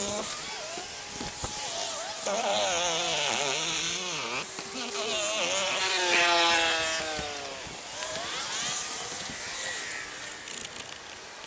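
Cordless power saw cutting a vent hole through asphalt shingles and roof decking. Its buzz wavers in pitch as the blade loads and frees, then winds down and stops about seven and a half seconds in.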